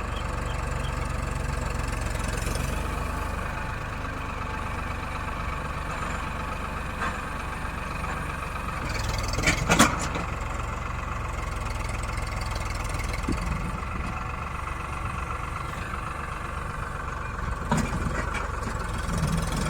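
Farmtrac 6055 tractor's diesel engine running steadily, with a short loud clatter of knocks about ten seconds in and a few lighter knocks near the end.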